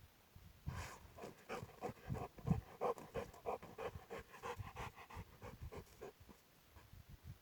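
A dog panting quickly, about three to four breaths a second, easing off near the end.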